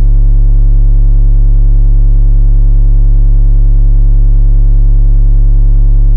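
Two Ascendant Audio 15-inch Avalanche subwoofers playing a steady, extremely loud 35 Hz bass tone, with overtones stacked above it.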